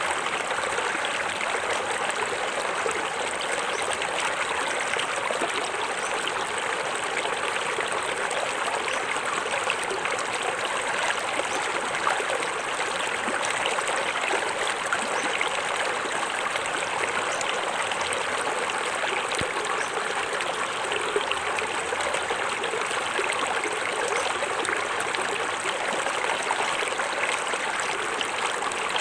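Small forest waterfall: water splashing and gurgling steadily over rocks.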